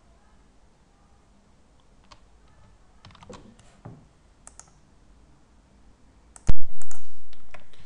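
A few light mouse clicks and key taps, then about two-thirds of the way in a sudden very loud pop with a split-second dropout and a low thump that dies away over about a second: the glitch of a screen recording being paused and resumed.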